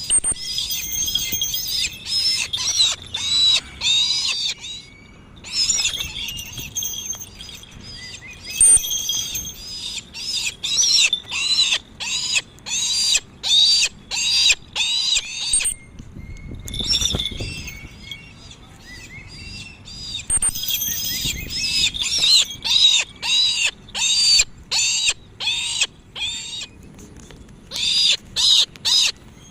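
Brahminy kite calling: rapid runs of short, high, squealing notes, several a second, in bursts with brief pauses.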